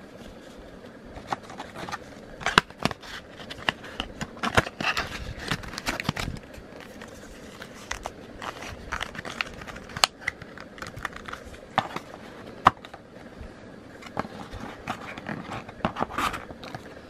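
Paper leaflets, a card envelope and a cardboard insert from a tablet's packaging being handled: irregular crinkling and rustling of paper with scattered sharp clicks and taps.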